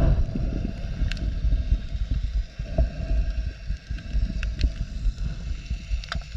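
Muffled underwater rumble of water surging against a chest-mounted GoPro's housing while snorkeling, uneven in strength, with a few faint sharp clicks.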